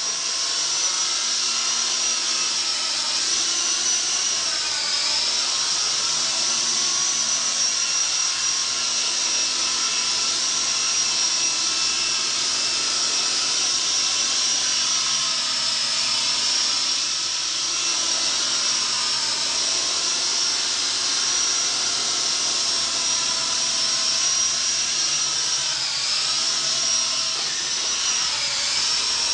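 Small electric motors and rotors of a toy RC CH-47 Chinook helicopter whining steadily at a high pitch in flight, the pitch dipping briefly twice.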